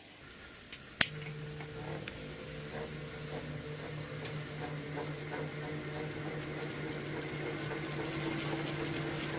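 A sharp click, then a small electric motor starts and runs with a steady hum that slowly grows louder.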